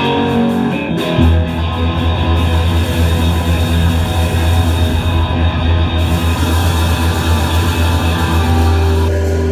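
Rock band playing loudly, led by electric guitar, with a deep low note that comes in about a second in and holds.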